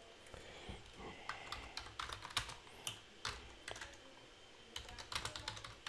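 Typing on a computer keyboard: faint, irregular key clicks as a short phrase is typed.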